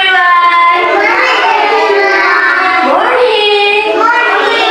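Young children and their teacher singing a song together, in long held notes.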